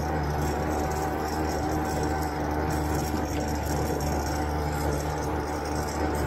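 Quad bike (ATV) engine running steadily, a constant low hum.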